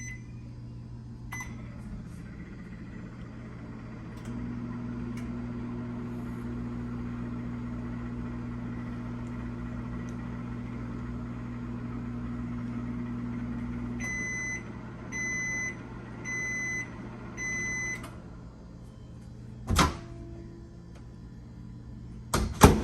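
GE over-the-range microwave running empty with a steady hum, which grows louder with an added tone about four seconds in, as when the magnetron switches on, until about fourteen seconds. Four short end-of-cycle beeps follow, then a loud clunk, and two more clunks near the end.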